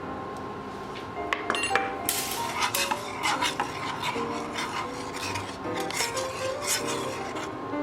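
A spoon stirring and scraping around a pot of thickening blackberry jam, with repeated clinks and scrapes starting about a second and a half in, over background music.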